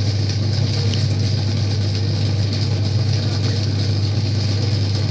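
Homemade compressor prototype running: a steady low hum with mechanical noise on top, unchanging throughout.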